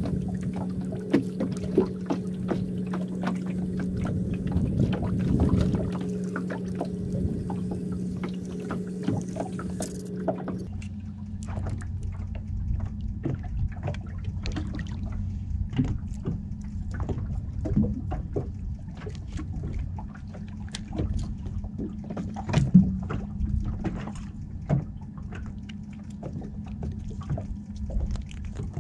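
A small fishing boat's motor humming steadily; about ten seconds in its note and hiss change abruptly to a lower, plainer hum, as if the motor changed speed. Irregular light taps and ticks sound throughout.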